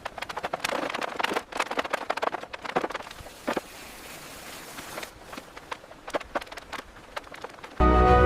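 Rapid, irregular clicks and knocks, with a steady hiss in the middle. Loud music with a deep bass cuts in just before the end.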